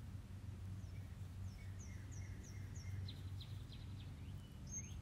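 Birds chirping outdoors: a run of short, quick, falling high notes starting about one and a half seconds in and repeating to the end, over a faint steady low hum.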